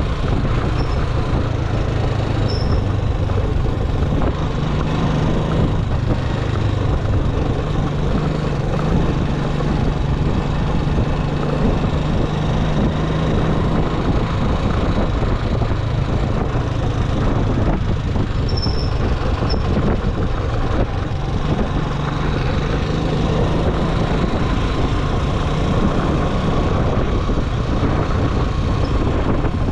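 A vehicle driving on the road: a steady low engine hum under continuous road and wind noise, holding an even speed.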